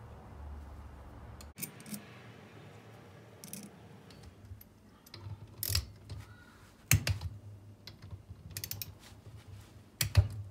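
Ratchet torque wrench clicking as the gearbox cover bolts are run down and torqued to 6.5 Nm, with a quick run of ratchet clicks and scattered sharp clicks and knocks of the tool on the metal casing.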